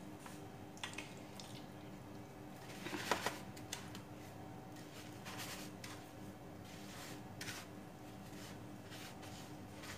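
Hands pressing and rolling raw chicken pieces in dry breadcrumbs on a plate, giving soft scattered rustling and scraping, loudest about three seconds in.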